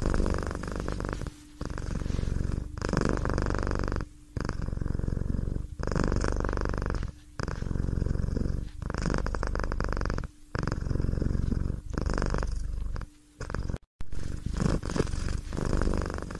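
Domestic cat purring in rhythmic cycles, one roughly every second and a half with a short break between each.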